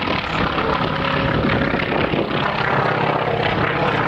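Engine of a propeller airplane flying overhead, running steadily.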